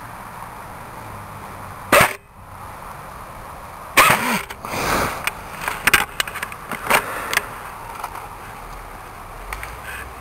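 Knocking, scuffing and rustling of movement and handling picked up by a gun-mounted camera. There is one sharp loud knock about two seconds in, then a flurry of irregular knocks and scrapes through the middle.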